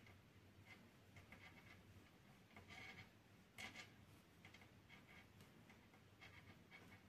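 Faint, irregular ticks and scratches of a crochet hook catching and pulling cotton yarn while double crochet stitches are worked, the sharpest tick a little past halfway.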